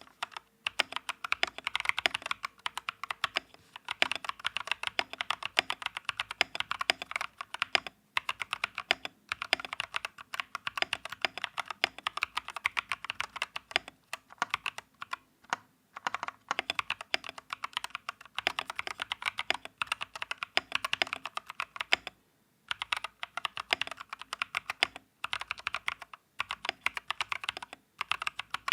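Typing on a Gamakay LK67 65% keyboard with unlubricated Feker Holy Panda tactile switches and PBT XDA-profile keycaps: fast runs of keystroke clacks broken by several short pauses.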